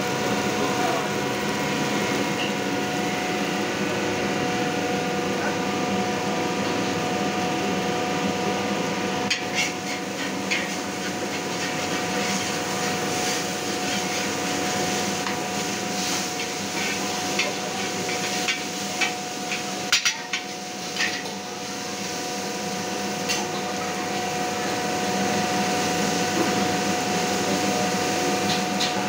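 Metal spatula and ladle scraping and clanking against a steel wok while stir-frying noodles, with a cluster of sharp knocks through the middle. Underneath is a steady rushing hum of kitchen noise.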